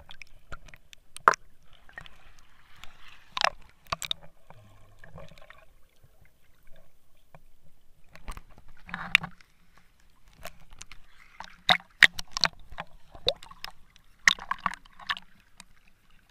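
Sea water sloshing and gurgling around an action camera as it dips under the surface and comes back up, with irregular sharp clicks and splashes.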